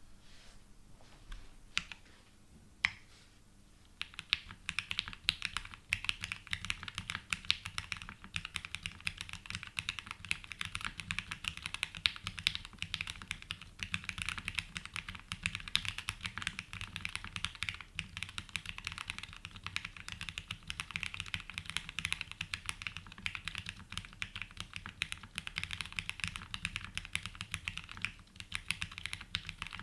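Typing on a Haven 65 custom mechanical keyboard with lubed and filmed Gateron Oil King linear switches, an aluminium plate and GMK keycaps. A few single keystrokes come first, then steady fast typing starts about four seconds in.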